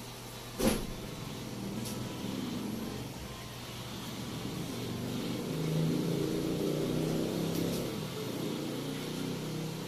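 A single sharp knock less than a second in. Then the low rumble of a passing motor vehicle, which swells midway and eases off toward the end.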